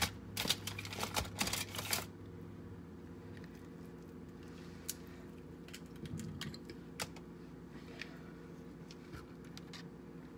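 Crackling and clicking of king crab legs being handled and cracked apart, a dense run in the first two seconds, then scattered single clicks over a low steady hum.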